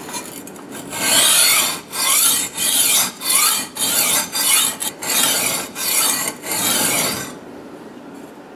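Kitchen knife blade being stroked along a 220 grit diamond sharpening plate: about ten rhythmic, hissing scrapes of steel on coarse diamond grit, stopping about a second before the end. He is sharpening the second side of the blade to raise a burr along its edge.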